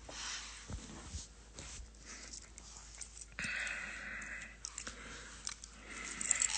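Faint clicks and rustling of a hand moving close to a phone's microphone, with a hiss lasting about a second around the middle.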